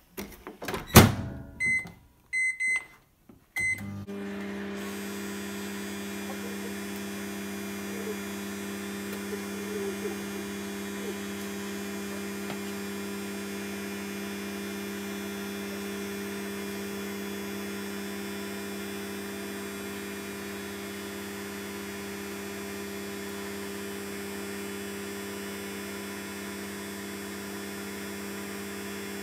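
A De'Longhi microwave oven's door shuts with a loud knock, its keypad beeps four times, and the oven then starts up and runs with a steady hum to heat the food.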